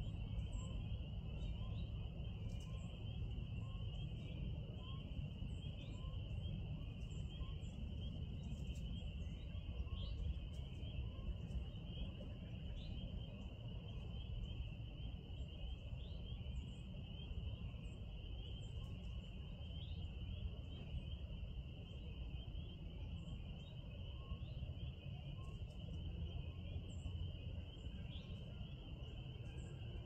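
Outdoor ambience: a steady, high-pitched chorus of calls with faint scattered chirps over it, and a constant low rumble underneath. For the first several seconds a faint chirp repeats about once a second.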